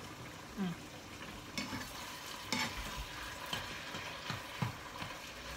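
Minced pork sizzling in a non-stick frying pan while a plastic spatula stirs it, with several scrapes and taps of the spatula against the pan.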